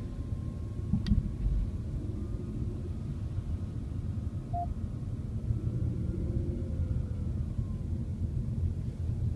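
Low, steady rumble of road and engine noise inside a Mercedes-Benz's cabin as it creeps along in traffic. A sharp click about a second in and a short beep about halfway through.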